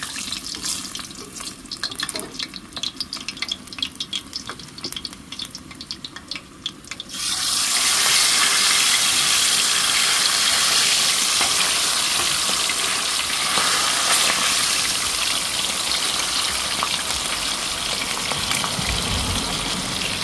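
Hot cooking oil with seasonings in a pot crackling and spitting. About seven seconds in, whole fish are lowered in and the oil breaks into a loud, steady sizzle of frying.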